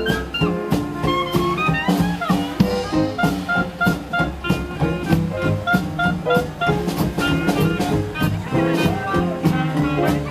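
Traditional New Orleans jazz band playing an instrumental chorus live: brass melody over a rhythm section keeping a steady swing beat.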